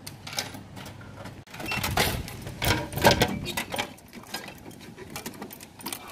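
Drinks vending machine's dispensing tray: a run of clicks, knocks and plastic rattles, loudest about two to three seconds in, as a plastic water bottle is pulled out through its swinging flap.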